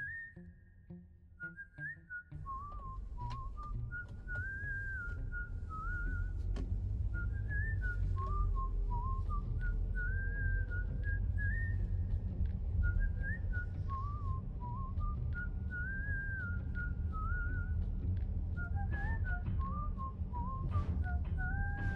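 A whistled melody of short rising and falling notes, repeating its phrase every few seconds, over the steady low rumble of a car on a wet road. The rumble grows louder about two seconds in.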